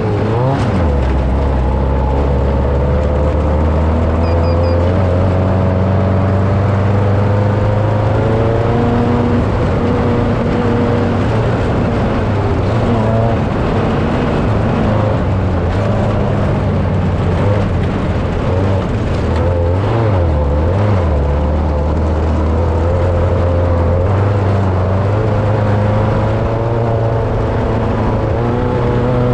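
Engine of an off-road desert race vehicle running continuously at speed over a loud low rumble, its pitch holding fairly steady with small rises and falls and a brief dip about twenty seconds in.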